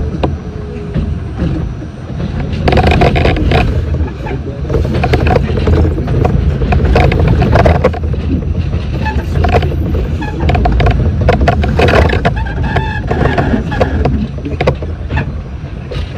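R68 subway car running on the rails, heard from on board: a steady low rumble of the train with many sharp wheel knocks and clatter over the track, getting louder about three seconds in.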